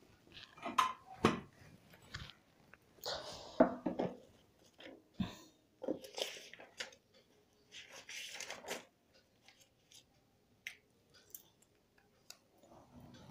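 Marker pen writing on a whiteboard: a run of short, irregular scratchy strokes, then a few light ticks near the end.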